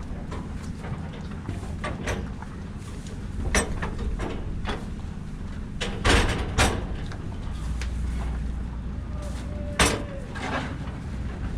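Irregular clanks and knocks over a steady low rumble. The loudest knocks come a little after halfway and again near the end.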